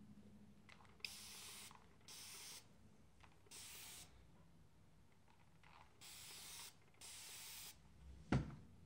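Hand trigger spray bottle misting hair: five separate hissing sprays of about half a second each. A single sharp knock near the end.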